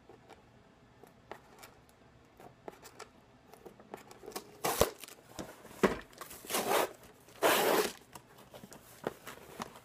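Fingers picking at the packing tape on a cardboard box with faint scratches, then the tape tearing off in several short, loud rips from about halfway through, the longest near the end.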